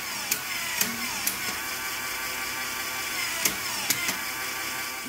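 Lego Technic gearbox driven by a small electric motor, running with a steady whir of motor and plastic gears. Several sharp clicks come as the output is held under load and the mechanism keeps switching between forward and reverse.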